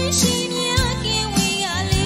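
Music: a song with a wavering sung or played melody over held bass notes and a steady beat, about one beat every 0.6 seconds.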